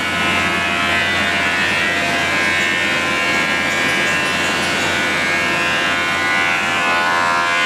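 Giantway industrial wood sanding machine running steadily: a constant mechanical drone with a steady electrical hum.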